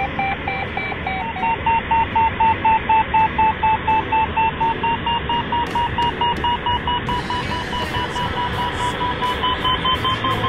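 A glider's audio variometer beeping in quick, even pulses, about three a second, its pitch creeping slowly upward, over a steady rush of air in the cockpit. The pulsed, rising tone signals that the glider is climbing in lift.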